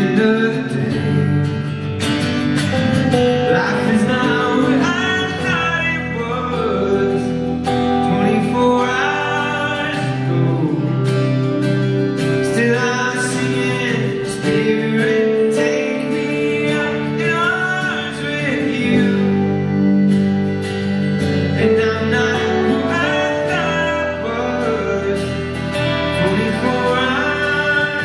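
Live rock band playing a slow song: guitar chords over a steady bass, with a male voice singing.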